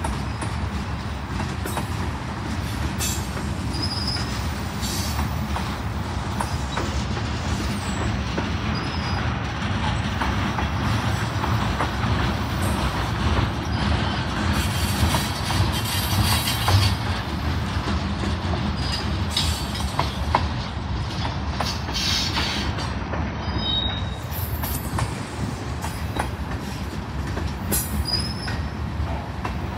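Freight train of loaded centerbeam flatcars rolling past close by: a steady rumble of steel wheels on rail, with scattered clicks over the rail joints and a few brief high squeaks now and then.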